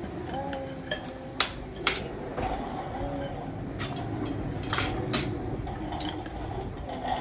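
Metal cutlery clinking and scraping against ceramic plates and bowls during eating, a scattering of short, sharp clinks at irregular intervals.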